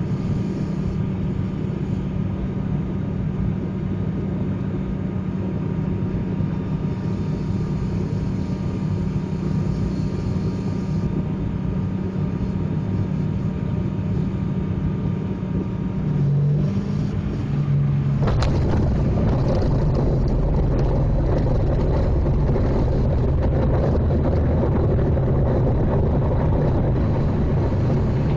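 Twin turboprop engines and propellers of an ATR 42 droning steadily, heard inside the cabin on final approach; the drone shifts lower in pitch shortly before touchdown. About eighteen seconds in, a sharp thud as the wheels meet the runway, followed by a louder rumble of the landing roll.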